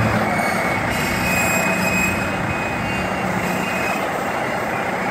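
John Deere 6120E tractor's diesel engine running steadily while the H310 front loader's hydraulics lift and curl the bucket.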